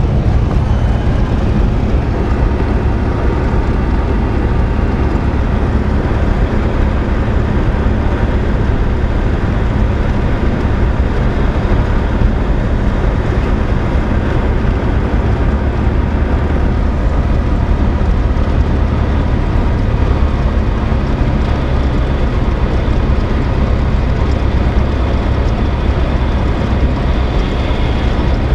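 Cessna 172R's four-cylinder Lycoming engine and propeller droning steadily, heard from inside the cabin, through the final approach and landing.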